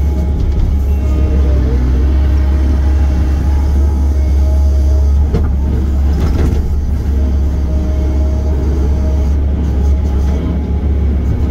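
Diesel engine of heavy earthmoving equipment running steadily under load, with a deep steady hum and a few metallic clanks about five to seven seconds in.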